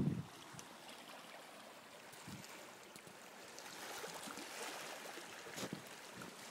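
Shallow sea water washing over shoreline rocks: a steady hiss that grows louder about halfway through. At the very start there is a low bump of handling noise on the phone's microphone, and a few light clicks come near the end.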